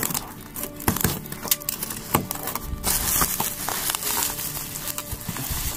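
Cardboard box flaps pulled open and plastic bubble wrap crinkling and rustling as hands rummage inside the box, with irregular short clicks and crackles.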